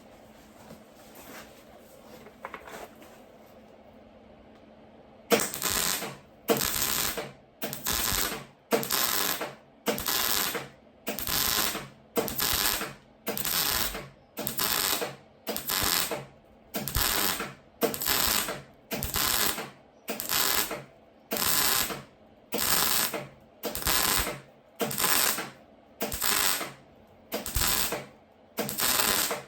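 Electric arc welding laid as a row of short stitch welds: after about five seconds of near quiet, the crackling arc starts and stops about once a second, some twenty bursts in a steady rhythm.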